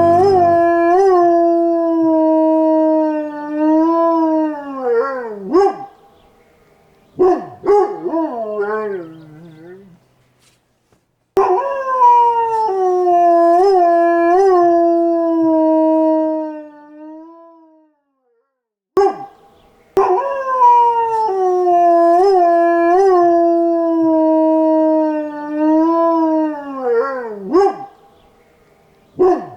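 Chihuahua howling: three long, wavering howls, each several seconds long and sliding down in pitch at the end. Shorter falling cries come between the first two.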